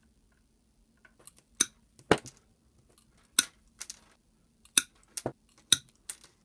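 7-inch combination pliers, Gedore then Knipex, snipping through 16-gauge silver-plated wire with Teflon insulation: about nine sharp snaps spread unevenly across a few seconds, several cuts in a row.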